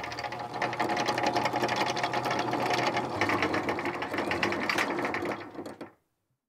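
Electric anchor windlass letting out anchor chain: a fast, even clatter of chain links running over the gypsy, which dies away near the end.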